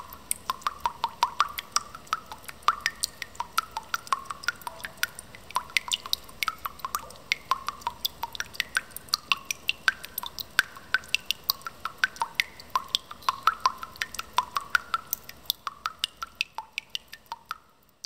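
Dense, irregular drip-like plinks, several a second, each a sharp tick with a brief ringing tone, fading away at the end.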